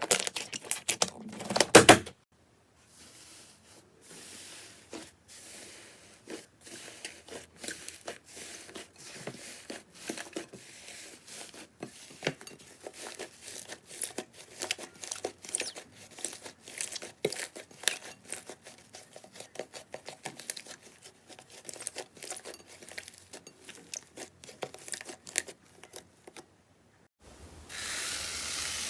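Slime being pressed and worked by hand, giving a dense run of small crackling clicks and pops. About 27 seconds in it changes to a denser, steady crunching hiss.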